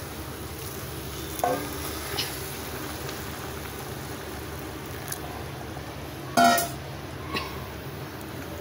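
Boiling water poured onto fried rice and masala in a metal pot, the mixture sizzling and bubbling steadily. A few short metal clinks, the loudest one about two-thirds of the way through.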